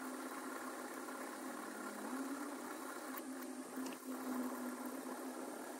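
A steady mechanical hum at one held pitch, stepping up slightly about two seconds in, with a few faint scrapes or ticks around three to four seconds in.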